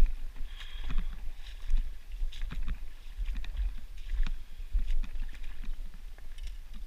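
Irregular crunches and clicks of river pebbles shifting underfoot and against the net as the stones are walked on, over a steady low wind rumble on the microphone.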